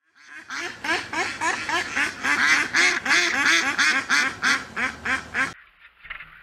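Many ducks quacking rapidly, the calls overlapping in a dense chorus that cuts off suddenly about five and a half seconds in. A faint quieter stretch follows.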